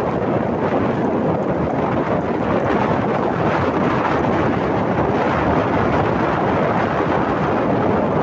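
Steady rushing wind noise buffeting the microphone, even and unbroken, as when recording on the move.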